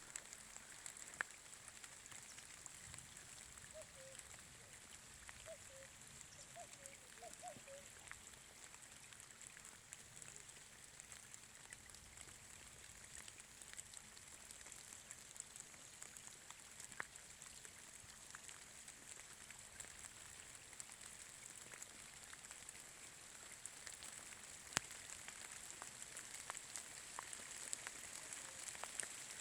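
Light rain falling: a faint, steady hiss with scattered ticks of individual drops hitting surfaces.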